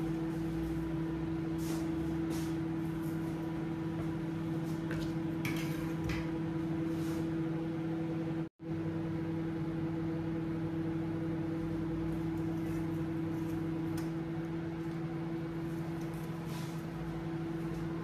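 Kenwood 25-litre microwave oven running with a steady hum while it heats food. The sound drops out for an instant about halfway through.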